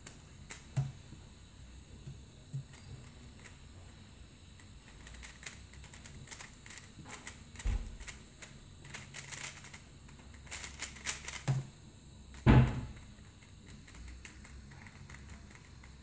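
Angstrom Valk 3 Elite M magnetic speedcube being turned fast: a few light clicks, then a dense run of quick clacking turns as the cube is solved, ending in a single loud thump about twelve and a half seconds in.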